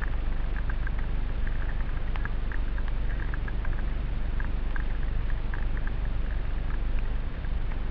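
Rain pattering on a helmet-mounted camera: scattered, irregular ticks of drops over a steady low rumble.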